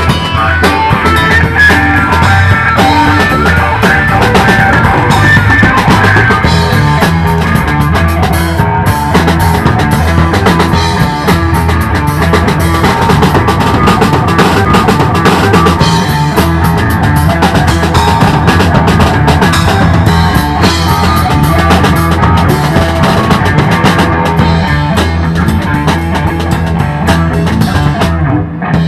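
Live funk-rock band playing an instrumental passage: full drum kit with bass drum and cymbals, and distorted electric guitars, loud and continuous with no vocals.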